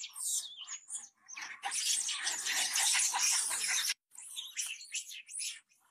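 Harsh, noisy cries of a young monkey in bursts, the longest lasting about two seconds, cutting off suddenly about four seconds in, then a few shorter cries.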